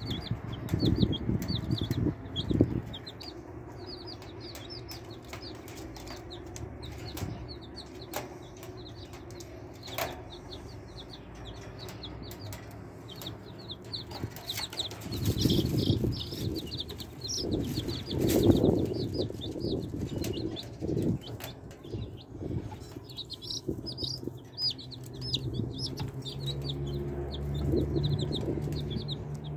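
Chicks peeping: a continuous stream of short, high cheeps, several a second. Bursts of low rumbling noise come near the start and again about halfway through.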